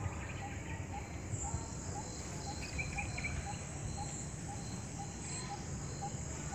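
Insects buzzing in a steady high-pitched chorus, with a short low note repeating about twice a second and a few brief chirps near the middle; low rumbling on the microphone underneath.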